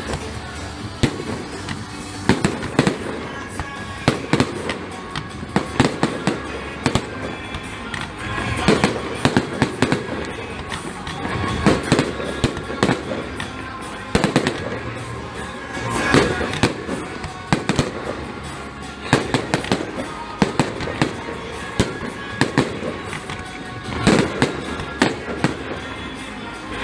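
Fireworks display: ground fountains and aerial shells going off in rapid bangs and crackles, with louder clusters of bangs every few seconds, over music.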